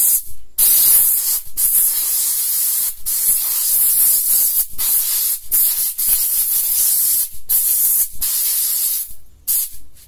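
Compressed-air blow gun hissing in a string of blasts about a second long with short breaks between them, blowing caked dust off a car's heater blower fan. The hissing stops shortly before the end.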